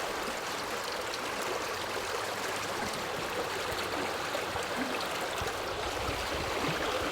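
Mountain stream flowing over rock slabs: a steady, even rush of water.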